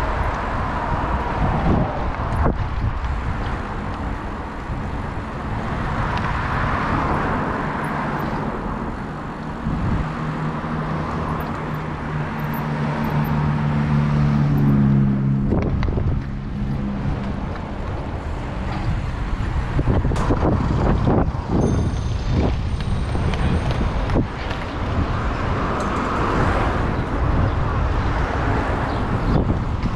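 City street traffic heard from a moving bicycle, with wind buffeting the microphone. A vehicle's engine hum grows louder near the middle and then fades.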